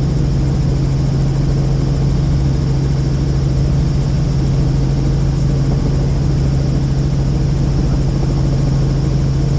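Helicopter in steady flight: a constant loud drone of rotor and engine with a low hum and a high whine, unchanging throughout.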